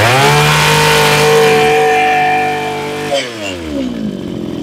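Mitsubishi TL23 two-stroke brush cutter engine revved from idle to full throttle, held at high revs for about three seconds, then let drop back to idle. The seller says it runs just right.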